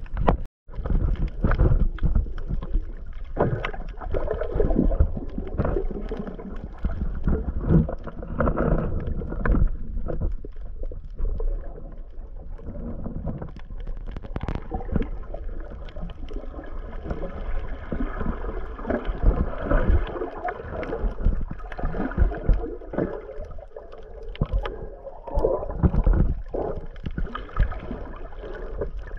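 Muffled water sloshing and gurgling around a submerged action camera, in irregular surges with small crackles. Just after the start it cuts out completely for a moment.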